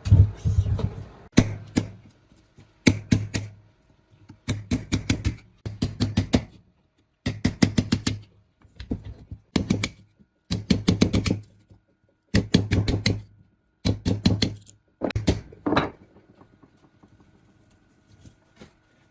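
About a dozen short bursts of rapid knocking, each a quick run of sharp hits lasting under a second, with brief pauses between. The bursts stop near the end, leaving only faint sounds.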